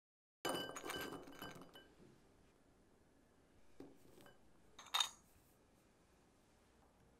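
Glassware clinking in a kitchen: a jar or bowl knocked and set down with a short ringing, a soft knock, then one sharp clink about five seconds in.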